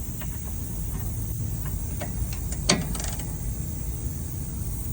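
A few scattered metallic clicks and knocks from hand tools on the strut bolts, the loudest a sharp knock a little under three seconds in, over a steady low shop hum.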